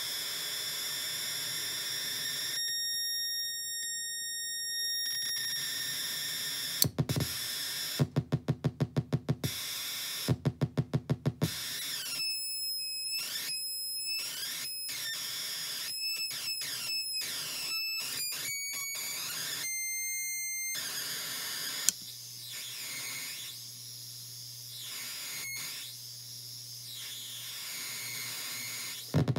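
Circuit-bent PsCyBr DeKrYpTR noise box, played through a light-based expression pedal, making static hiss with steady high-pitched tones. Partway through it breaks into two runs of fast stuttering pulses, about ten a second, then into choppy tones cutting on and off. It settles into a quieter low hum with faint high tones for the last several seconds.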